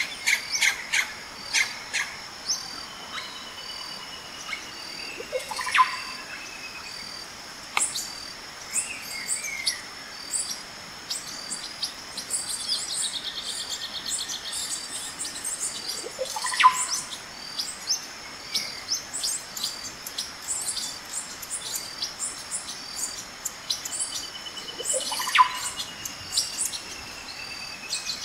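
Birds chirping and singing in a chorus of short high notes and long, slowly falling whistles, over a steady high pulsing drone. Three louder calls sweep sharply down in pitch, about ten seconds apart.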